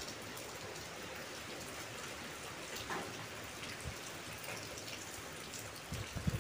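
Rain falling steadily, a soft even hiss, with a couple of faint clicks about three and four seconds in.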